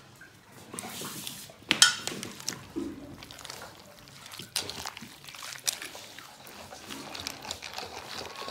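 Pounded palm fruit being worked with a spoon in hot water in a metal basin to extract its juice: liquid sloshing and squelching, with a few sharp knocks, the loudest a little under two seconds in.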